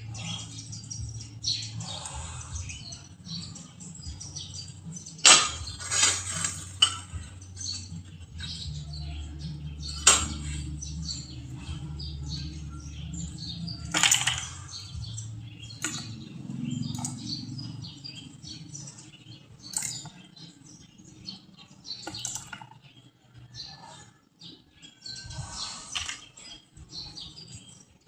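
Scattered sharp clicks and knocks over a steady low hum, with faint high chirping in the background.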